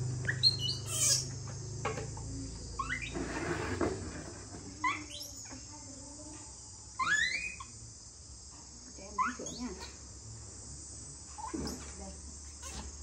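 A steady high-pitched chorus of insects, with short rising squeaks from young pet monkeys every couple of seconds.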